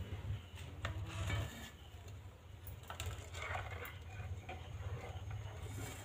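Rose-ringed parakeet's beak and feet tapping and scratching on a wooden stool as it moves about: scattered light taps over a low steady rumble.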